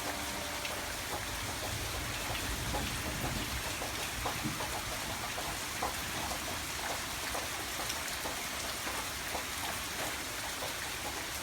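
Steady rain falling, with a light patter of scattered drops.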